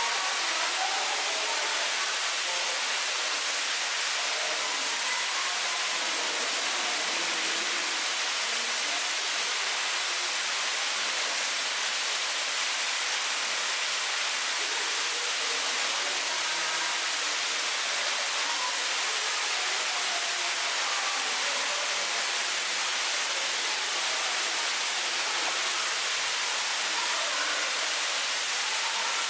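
Steady rushing hiss of background noise at an even level, with faint short chirp-like tones scattered through it.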